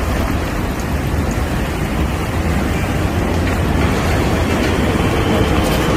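City street traffic: a steady noise of cars and other vehicles running past.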